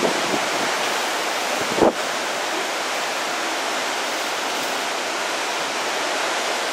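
Severe thunderstorm (derecho) winds blowing hard and steadily with wind-driven rain, heard as a constant rushing hiss. A single brief thump about two seconds in.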